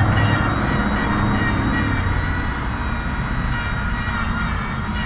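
An engine running steadily with a low, even rumble and no sharp revs.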